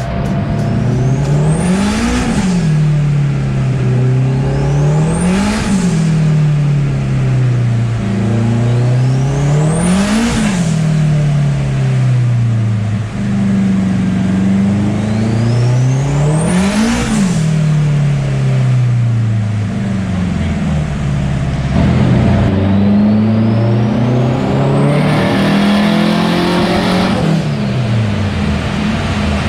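Honda Integra DC2's turbocharged K20 four-cylinder engine being driven hard on the road, revving up and dropping back about five times, with a high whistle rising on each pull. The car is being road tested to find a slight misfire.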